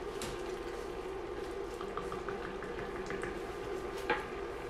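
Pasta simmering in chicken stock and cream in a pot, bubbling steadily over a low hum, with a run of small pops a couple of seconds in and a single knock near the end.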